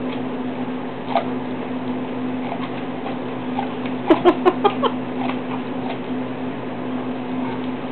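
Dog nibbling kernels off a corn cob, with small crisp crunches and teeth clicking. About four seconds in comes a quick run of about five louder crunches. A steady low hum runs underneath.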